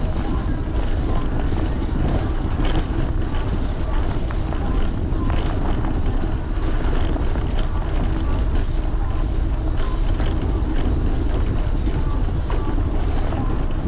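Steady wind rush on a bike-mounted camera's microphone as a fixed-gear bicycle rolls over brick pavers, with irregular clicks and rattles from the tyres and bike on the bricks.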